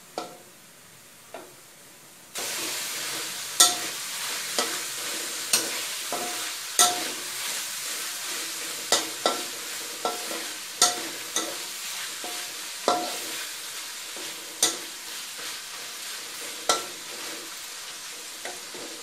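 Metal spatula scraping and knocking against a wok as pork belly pieces are stirred, over a steady sizzle that starts suddenly about two seconds in. The soy-sauce braising liquid is cooking down to a sticky glaze around the pork.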